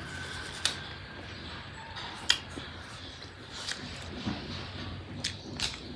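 A few light clicks and taps over low room noise, the sharpest about two seconds in.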